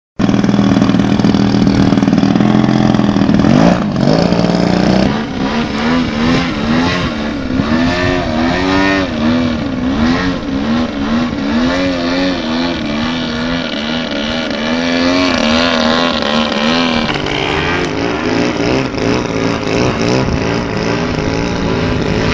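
The large petrol engine of a giant-scale RC aerobatic plane running at high power in flight. Its note swings up and down in pitch again and again as the plane maneuvers overhead.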